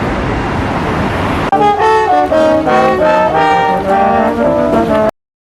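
Brass instruments playing a quick tune of short notes, several pitches at once, cutting in suddenly after about a second and a half of steady outdoor noise and breaking off abruptly near the end.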